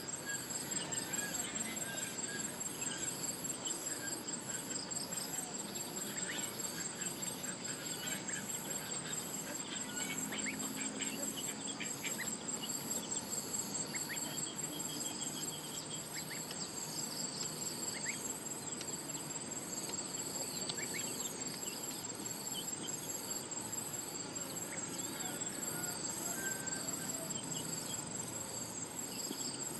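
Insect chorus, likely crickets: a steady, evenly pulsed high chirping, with scattered short, faint bird chirps.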